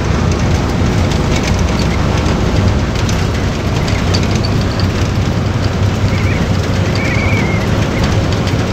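Steady road and wind noise of a vehicle driving at speed, heard from on board: a continuous low rumble under a hiss.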